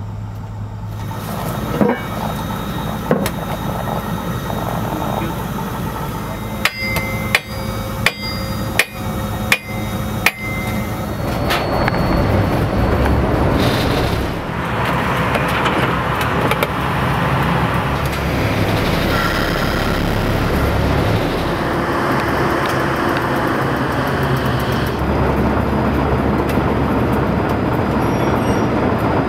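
Sharp hammer blows on metal, each ringing briefly: two single strikes, then a quick run of about six. They fall over a steady low engine hum, and from about eleven seconds in the engine of a small Plymouth switcher locomotive runs louder.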